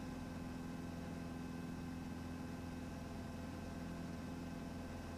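Steady, faint hum of a Cessna 150's four-cylinder Continental O-200 engine running at low power on the ground, under an even hiss.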